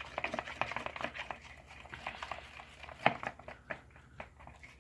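Popsicle stick stirring glue in a bowl: irregular small sticky clicks and scrapes, with a sharper knock about three seconds in.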